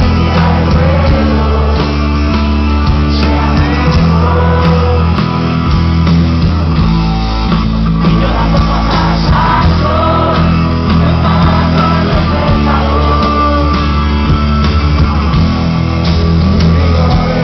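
Loud live rock music: a band playing with a sung voice coming through at times.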